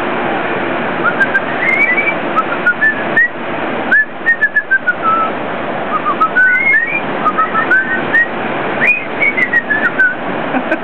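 Parrot whistling a tune: a run of short, high whistled notes and little upward glides, over a steady rushing background noise.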